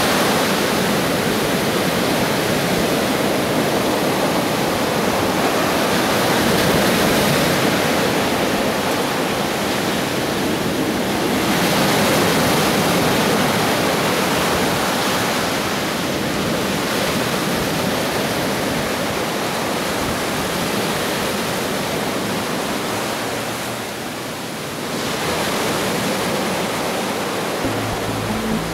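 Ocean surf washing up and draining back over sand at the water's edge: a steady rushing hiss that swells and eases every few seconds.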